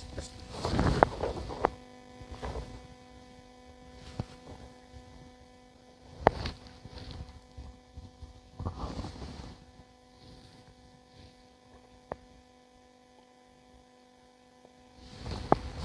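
A steady low hum with evenly spaced overtones, cutting out near the end, with a few sharp knocks (the loudest about six seconds in) and bouts of rustling.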